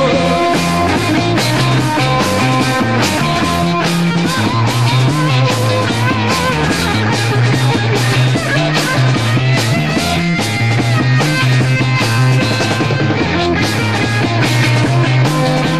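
Psychedelic rock recording playing: a drum kit keeping a steady beat under a moving bass line and electric guitar, with no singing.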